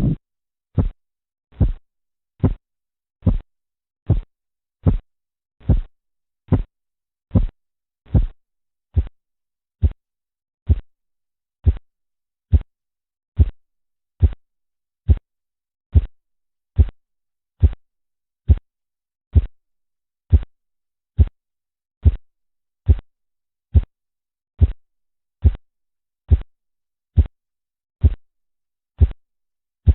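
Korotkoff sounds heard through a stethoscope below a blood-pressure cuff: a steady train of single low thumps, one per pulse beat, about 72 a minute. They mark the cuff pressure lying between systolic and diastolic, with blood spurting through the partly compressed artery at each beat.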